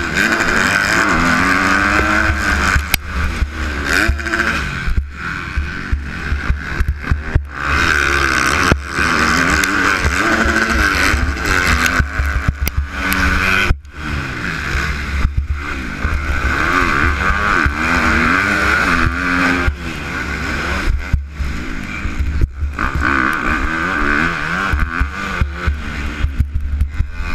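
250-class motocross bike's engine heard from the rider's helmet camera, revving up and down over and over as the rider works the throttle and gears around the track, with a steady rush of wind over the microphone. The engine sound dips briefly several times, most deeply about 14 seconds in.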